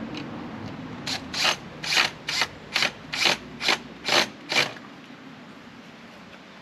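A hand-worked ratcheting mechanism, about nine quick clicking strokes a little under half a second apart, which stop short of five seconds in.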